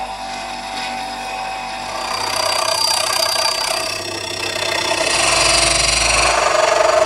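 A bench grinder runs with a steel file held to its wheel. About two seconds in, the sound changes to a harsh, rising scraping: a hand file is held against an aluminium pulley spun by an electric motor, turning the pulley true.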